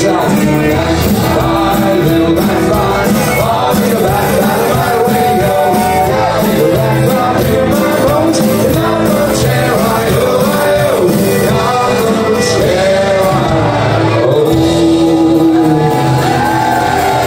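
Live folk-rock band playing loudly, with fiddle, acoustic and electric guitars, banjo and drums, and singing over it. Shouting from the crowd rises through the music.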